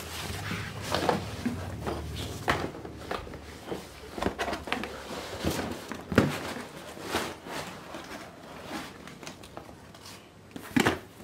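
Irregular knocks, scrapes and rustling of cardboard and thermocol (styrofoam) packing being handled and pulled apart as a large box is unpacked.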